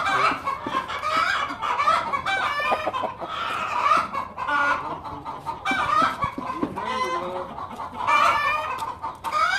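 Chickens clucking, one call after another with no pause.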